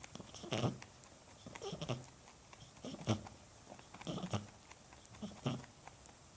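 Pet rabbit wheezing: five noisy breaths, about one every second. Wheezing like this in a rabbit is a sign of a narrowed or blocked airway, a respiratory problem.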